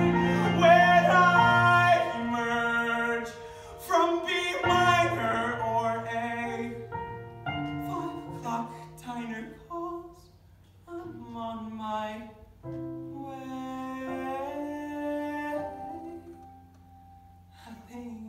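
A man singing a slow song with piano accompaniment, loud and held at first, then softer after a few seconds.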